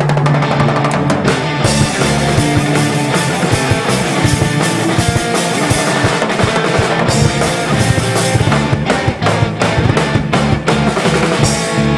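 Rock music with drums and guitar, loud and steady, with a regular drum beat.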